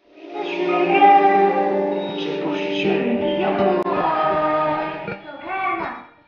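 Stage-show music with singing, starting suddenly.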